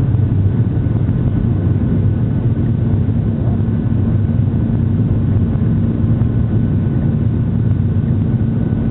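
Jet airliner cabin noise heard from a window seat: engines and airflow make a steady low drone with a faint constant whine above it.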